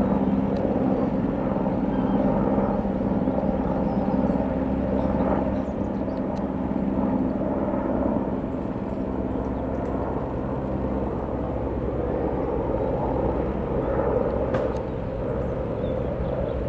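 Aerospatiale AS355 F2 Twin Squirrel twin-turbine helicopter flying past. A steady engine and rotor drone, whose tones fade after about five seconds as the sound slowly eases off.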